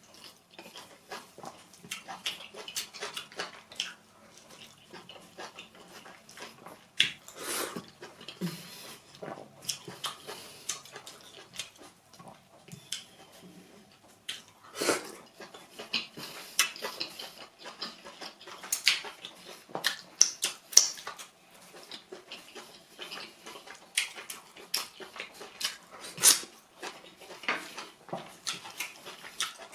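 Close-miked eating of soup and pounded yam: wet chewing and lip-smacking, a dense run of irregular mouth clicks with a few louder smacks.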